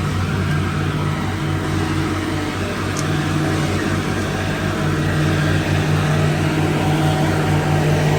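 Heavy engine running at a steady speed, a constant low hum from the concrete pumping equipment on the job.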